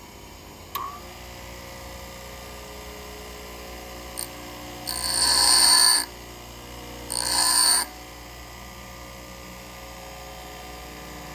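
Bench grinder motor running steadily, with two short bursts of grinding about five and seven seconds in, each a loud, ringing hiss, as a drill bit's point is touched to the wheel to bring it back to centre.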